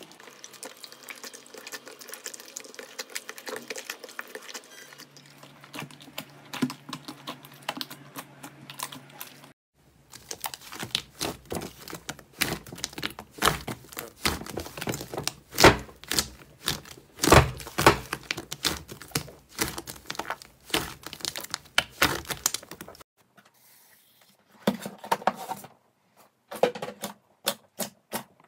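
Hands squishing, pressing and poking slime: a run of quick sticky clicks and pops. They are moderate at first, then loud and dense for about thirteen seconds after a brief break, and sparser again near the end after a short lull.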